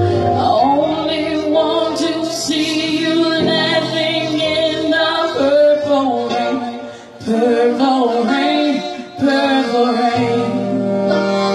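A woman singing live into a microphone, her voice carrying the melody almost alone. The low accompaniment drops out at the start and comes back in near the end.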